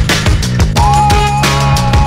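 Electronic background music with a fast drum beat and steady bass; a melody line slides up to a held note just under a second in.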